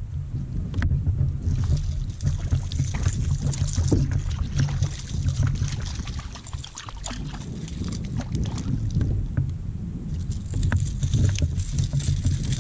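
Wind rumbling on the microphone, with water lapping against a fishing kayak's hull and a hiss that comes and goes.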